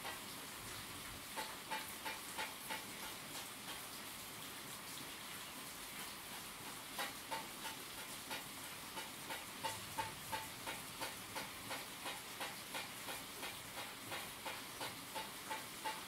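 Steady rain hiss with sharp, slightly ringing ticks like falling drops. The ticks come a few at a time early on, then settle into about three a second from about halfway through.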